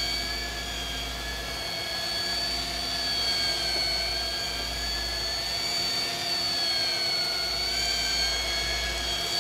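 Sportfishing boat's engines running under way: a steady high whine over a low rumble, the pitch wavering slightly about two-thirds of the way through.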